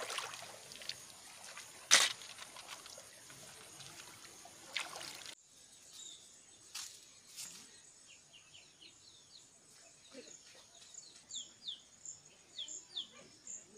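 Hands sloshing and trickling in shallow muddy paddy-field water while picking out snails, with one sharp knock about two seconds in. After a sudden drop in level it goes quieter, and a bird chirps over and over in short downward notes.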